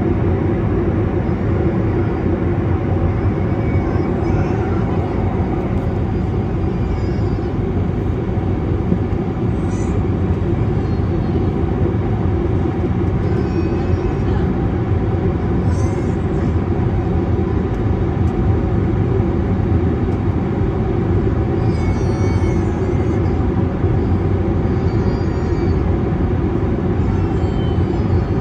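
Steady low roar inside the cabin of an Airbus A321neo climbing after takeoff: its Pratt & Whitney geared turbofan engines at climb power and the rush of air past the fuselage, heard from a window seat beside the wing.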